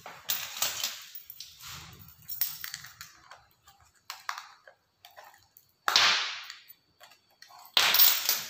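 Taped, sealed headset packaging being worked open: several short bursts of crinkling, scraping and tearing, the loudest about six seconds in and again near the end.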